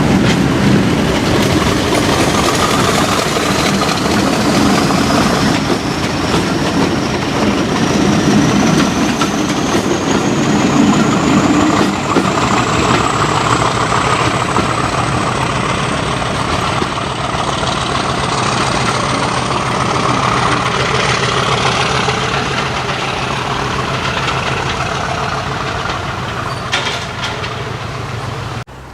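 Diesel locomotive working hard past the lineside, engine running loud with a high whine that rises steadily in pitch. The sound cuts off suddenly near the end.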